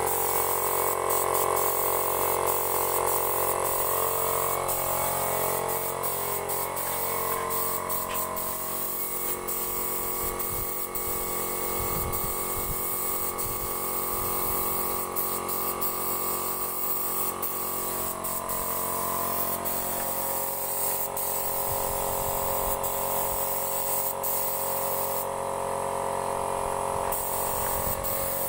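Compressed-air spray gun hissing as it sprays wood finish, over a steady mechanical whine; the hiss stops for about two seconds near the end, then resumes.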